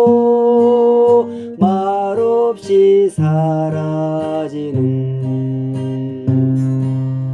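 Slow Korean folk song sung to strummed acoustic guitar, the voice holding long notes over the guitar.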